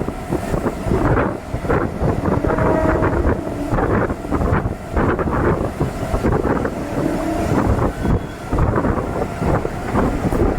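DEMU passenger train running at speed, heard from on board: a steady rumble of wheels on the track with continuous rattling and clatter, and wind buffeting the microphone.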